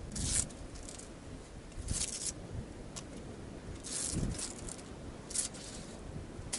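Brief rustles and scrapes of a landing net and its red cover being handled, a few short bursts about every one to two seconds, with a soft knock about four seconds in.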